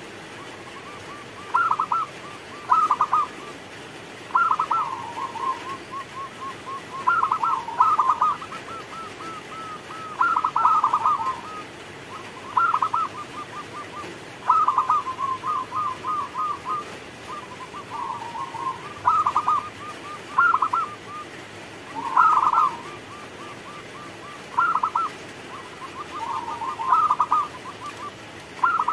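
Zebra dove (perkutut) singing its cooing song: a phrase every couple of seconds, each opening with a loud cluster of notes and trailing off in a quick run of softer, rapid coos.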